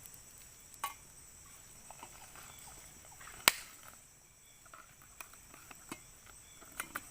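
Scattered small clicks and taps, with one sharp click about three and a half seconds in, over a faint steady high insect drone.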